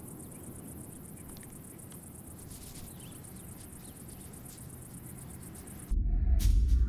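Faint, even, rapid high trill of a cricket-like insect over a low hiss. About six seconds in, loud music with a deep sustained drone and gong-like tones starts suddenly and drowns it out.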